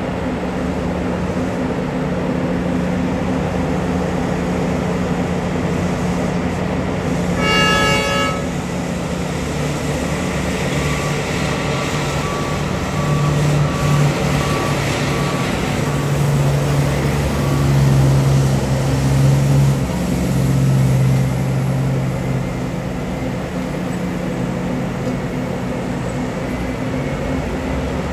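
Heavy diesel engines of a mining excavator and dump truck running. A single short horn blast sounds about eight seconds in. After it comes a string of reversing beeps, a little more than one a second, while the engine note swells and falls back.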